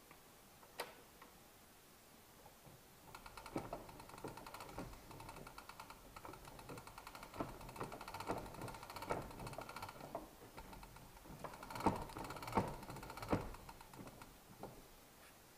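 Victrola VIII gramophone's hand crank being wound, the spring motor's ratchet giving off rapid, even clicking for several seconds, the crank a little stiff. A single click comes about a second in, and three louder knocks come near the end.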